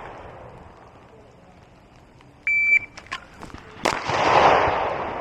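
A shot timer's start beep, then about a second and a half later a single 9mm Glock pistol shot that rings out and fades with echo: a timed draw-and-fire drill.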